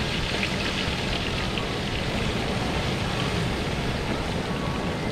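Whole turkey being lowered into the hot oil of a propane turkey fryer: steady sizzling with a dense crackle over the burner running, the crackle busiest in the first couple of seconds.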